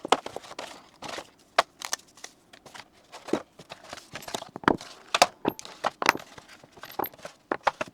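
Advent-calendar packaging being handled and a compartment opened to take out an item: irregular sharp clicks and taps with light rustling, several louder knocks a few seconds in.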